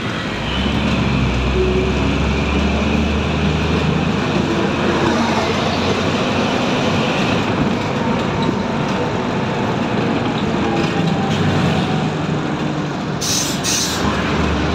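City bus running, heard from inside the cabin: steady engine hum and road rumble. A brief hiss comes near the end.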